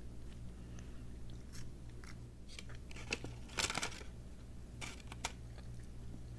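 Close-miked chewing of honeycomb: scattered soft wet clicks and smacks, with a denser burst of sticky mouth noises a little past halfway.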